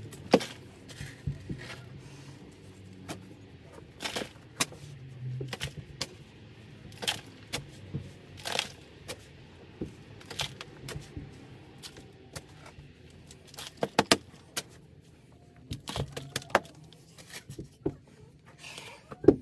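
Metal digging tool striking and scraping into packed crawl-space soil by hand: irregular sharp chops and scrapes, one or two a second with short pauses, as dirt is broken up.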